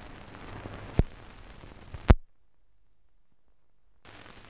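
Hiss of an old optical film soundtrack with two sharp pops about a second apart, the second the louder. The sound then drops out almost entirely for nearly two seconds before the hiss returns.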